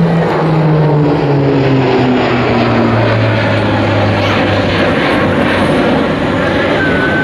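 Airbus A400M's four turboprop engines and eight-bladed propellers droning loudly overhead, the propeller hum falling in pitch over the first few seconds as the aircraft passes and turns away, then holding at a steady low drone.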